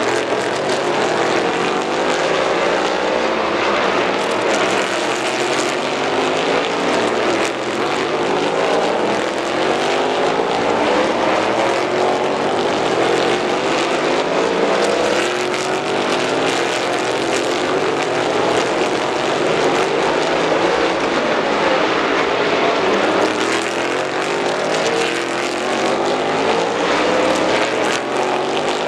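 A pack of race car engines running together: a dense, overlapping drone with pitches rising again and again as the cars accelerate.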